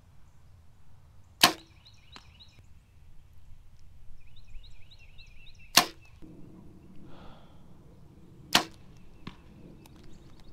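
Compound bow shot three times, each release a sharp loud snap, with a faint knock of the arrow striking the target about three-quarters of a second after each.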